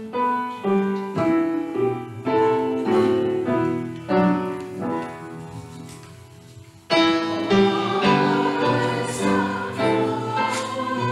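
Piano playing separate chords, then a choir comes in singing with the piano about seven seconds in.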